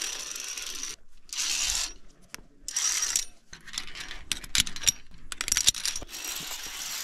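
Via ferrata carabiners clicking and scraping on the steel safety cable as they are moved along it and past an anchor. There are stretches of hiss, with a quick run of sharp metallic clicks about four to six seconds in.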